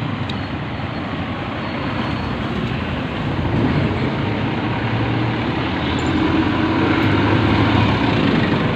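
Steady road-traffic noise with a vehicle engine humming, growing louder about three and a half seconds in.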